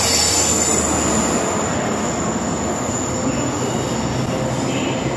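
A train running out of sight: a steady rushing rail noise with a thin high-pitched whine over it, and a low hum that fades out about a second and a half in.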